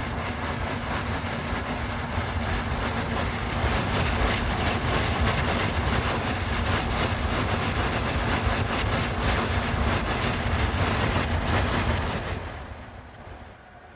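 De'Longhi 13,500 BTU portable air conditioner running with a loud, rough mechanical noise over a low rumble, far beyond its normal compressor and fan sound: a fault that developed after a few hours of running. The noise fades away near the end.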